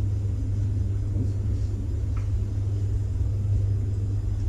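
Steady low hum of room tone in a pause between talk, with no speech.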